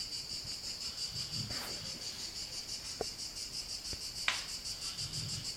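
A sleeping pet snoring softly, with two low snores about four seconds apart, under a louder, steady, rapidly pulsing high trill. A sharp click comes about four seconds in.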